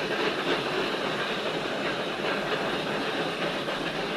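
Steady running noise of machine-shop machinery, an even rumble and hiss with no distinct strokes or beats.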